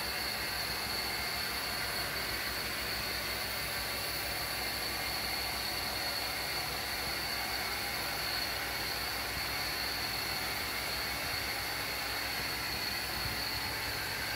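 Carpet-cleaning spray wand hissing steadily as it mists solution onto the carpet, over the running extraction machine, with a constant high-pitched whine.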